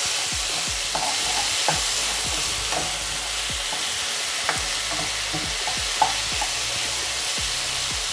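Chopped tomatoes, bell peppers and onions sizzling in a granite-coated pot while being stirred with a wooden spoon, with a steady hiss and light, irregular knocks and scrapes of the spoon against the pot every second or so.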